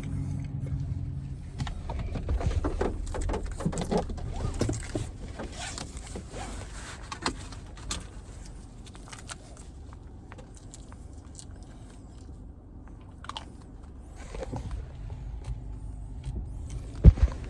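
Clicks, rustles and small knocks of things being handled in a car, over a low steady rumble, with one sharp thump near the end.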